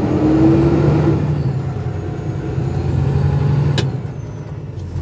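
Kenworth T680 heavy truck's diesel engine pulling under way, its note easing off about one and a half seconds in and picking up again, as the automatic transmission changes gear by itself. A sharp click near the end.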